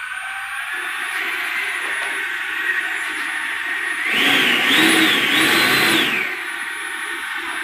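70 mm 12-blade electric ducted fan of a foam RC jet whining steadily at low throttle. About four seconds in it is throttled up for around two seconds, its whine rising and wavering in pitch and getting louder, then drops back to the lower steady whine.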